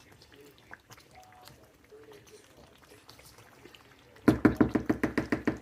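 Rapid, even knocking, about ten strokes a second, starting about four seconds in after a stretch of faint low sounds.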